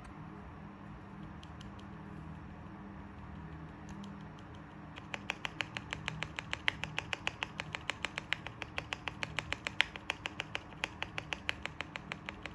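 Enter key of a mechanical keyboard pressed rapidly and repeatedly from about five seconds in, giving a fast, even run of clicks. The key has no stabilizer rattle, its modded stabilizers damped with EVA foam. A low steady hum sits underneath.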